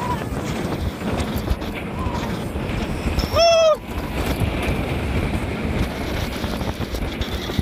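Wind rushing over the microphone and the rumble of a steel roller coaster train running on its track, with one short high scream from a rider about three and a half seconds in.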